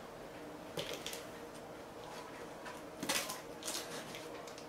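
Cardboard box being handled and opened by hand and knife: brief scrapes and rustles in a few short clusters, about a second in, around three seconds in and near the end.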